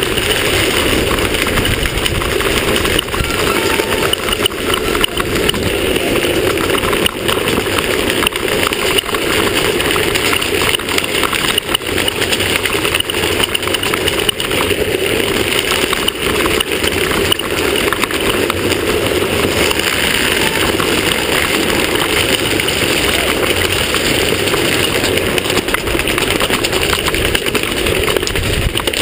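Drift trike rolling fast over a paved street: a steady loud rumble of wheels and rushing wind, broken by frequent small jolts from bumps in the paving.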